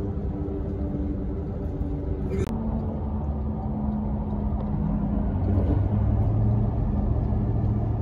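Road and engine noise inside a moving truck's cabin at highway speed: a steady low rumble with a droning hum, a little louder about six seconds in.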